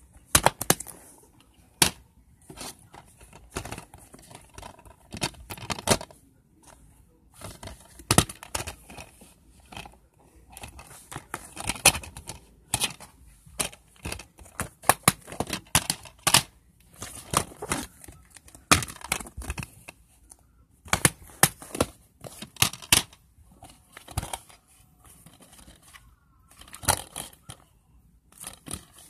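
Plastic DVD cases handled close to the microphone: irregular sharp clicks and snaps with bits of rustling as cases are opened, closed and turned over and discs are taken off their hubs.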